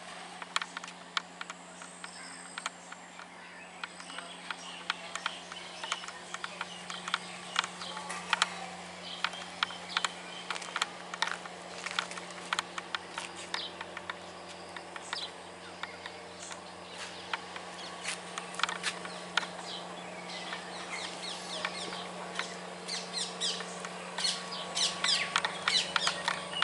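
Many small birds chirping and calling in quick, overlapping notes, busiest near the end. A steady low hum runs underneath.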